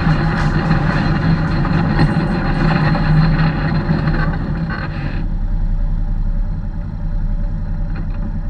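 Polaris RZR side-by-side engine running on a gravel dirt road, with rough road and tyre noise. About five seconds in, the road noise drops away and the engine settles to a steady idle as the vehicle stops.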